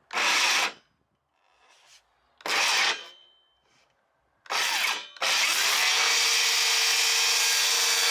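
DeWalt FlexVolt 60V DCS578 brushless cordless circular saw triggered in three short bursts, each about half a second long and cut off quickly by its electric brake, then run steadily for about three seconds.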